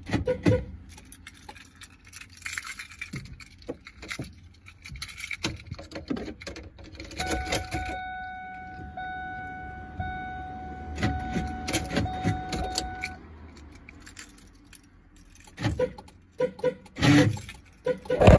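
Keys jangling and clicking, with a steady electronic beep-tone held for about six seconds in the middle. A few louder knocks come near the end.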